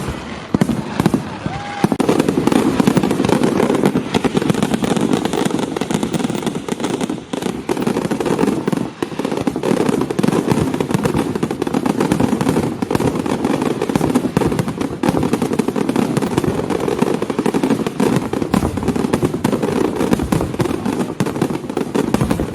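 Fireworks display: a few separate bangs, then from about two seconds in a dense, continuous barrage of rapid crackling pops.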